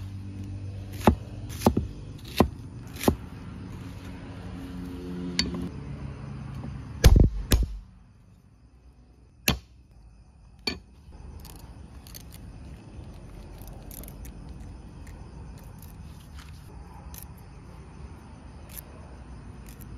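A large knife knocking on a thick round wooden chopping block as an onion is cut: a few sharp knocks in the first seconds, a louder cluster about seven seconds in, then a few lighter taps and ticks.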